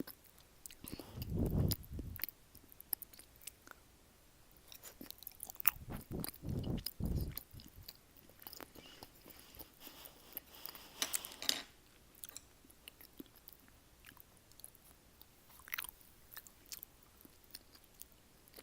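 A person chewing food close to the microphone, with wet mouth clicks and smacks all through and two louder, deeper stretches of chewing, about a second in and again around six to seven seconds in.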